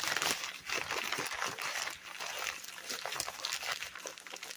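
Paper crinkling and rustling as it is handled: a run of many small crackles, dying down towards the end.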